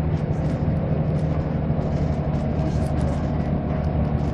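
Irisbus Citybus city bus under way, heard from inside the passenger cabin: a steady engine and drivetrain hum with road noise, and light clicks and rattles from the bus body and door fittings.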